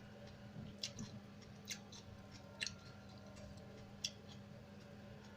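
Cutlery clinking and scraping lightly on a plate while eating, four short sharp clicks a second or so apart, one leaving a brief ring, over a faint steady hum.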